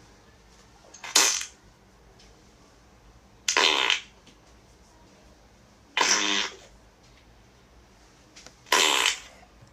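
Four separate fart sounds of different kinds, each about half a second long, coming roughly every two and a half seconds.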